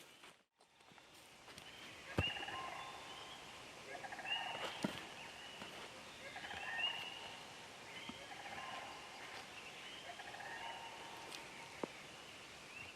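Wild turkey gobbler gobbling again and again, about five rattling gobbles a couple of seconds apart, a sign of a tom that is fired up. A few sharp knocks fall between the gobbles.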